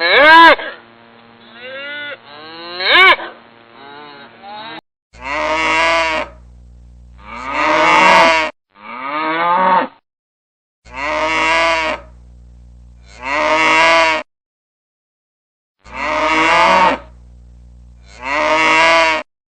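Cattle mooing: a series of drawn-out moos about a second long. The later ones come as the same pair of moos repeated three times with short pauses between.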